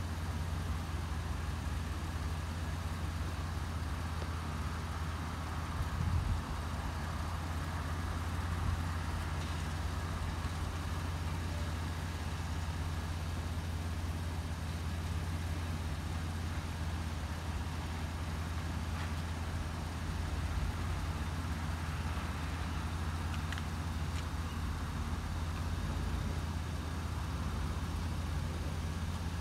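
Steady low rumble of road vehicles idling, with one brief low thump about six seconds in.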